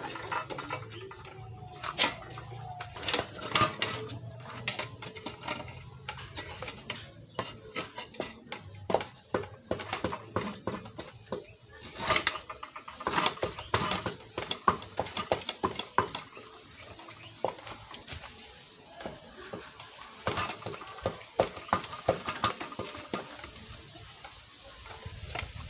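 Irregular clatter of a cooking utensil knocking against a pot, in clusters of sharp knocks, while swallow is being prepared.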